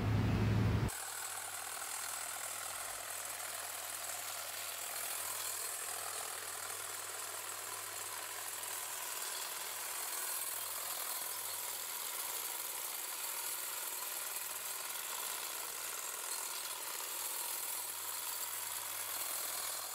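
Cordless electric hedge trimmer running steadily as it is worked through a clump of reed canary grass, starting about a second in and keeping an even level.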